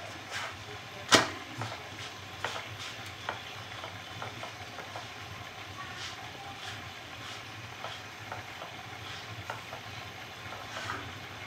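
Spatula pressing and turning a naan in a non-stick frying pan: soft scrapes and taps against the pan, with one sharp knock about a second in, over a steady low hum.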